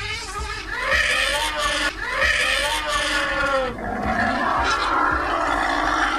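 Loud, drawn-out animal calls that waver in pitch, in two long stretches, the second rougher and noisier than the first.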